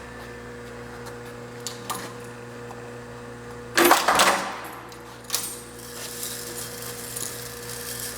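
Superior Model 610 impact riveter running, its 115 V single-phase electric motor giving a steady hum. A few small metallic clicks, and about four seconds in one loud, half-second metallic clatter as the machine cycles.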